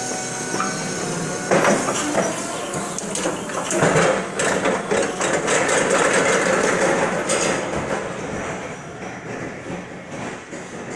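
Crown electric warehouse lift truck on the move: motor and hydraulic whine with rattling and clatter from the mast, and two sharp clanks, one about one and a half seconds in and one about four seconds in. The noise is busiest in the middle and fades toward the end as the truck draws away.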